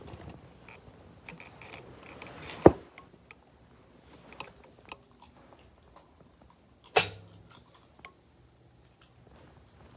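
Quiet handling noise: a few light taps and ticks, with two sharp clicks, one a little under 3 s in and a louder one about 7 s in.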